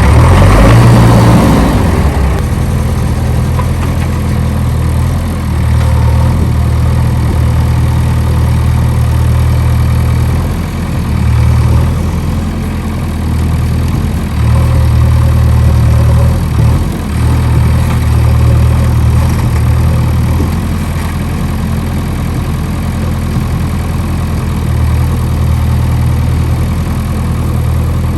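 Heavy diesel engine running steadily with a deep note, easing off briefly a few times about halfway through.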